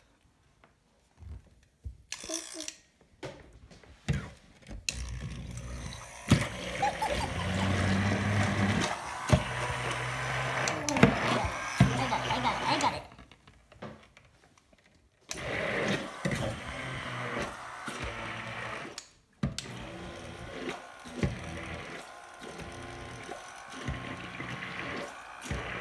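Electric kitchen blender running in several spells, each starting and stopping abruptly, with clicks and knocks in between.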